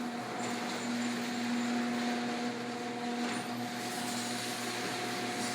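Screw-drive garage door opener running and moving the door, a steady hum that keeps an even pitch throughout.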